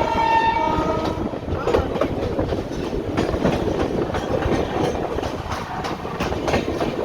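LHB passenger coaches running through a junction at speed: steady rolling noise with rapid, uneven clatter of wheels over rail joints and points. A horn's steady multi-note tone trails off about a second in.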